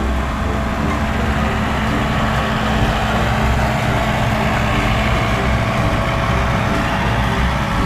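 Heavy diesel engine of an asphalt road roller running steadily at road works, with a continuous low throb.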